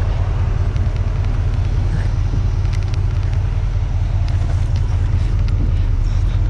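Chevrolet Silverado 2500 HD's Duramax diesel engine idling: a steady low rumble with an even hum.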